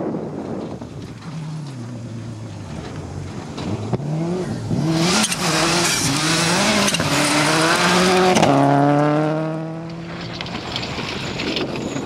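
Subaru Impreza rally car driven hard on gravel, its engine revving up and dropping back through a run of quick gear changes. Near the middle it is loudest, with a hiss of thrown gravel, then the engine note drops sharply as it goes past and fades.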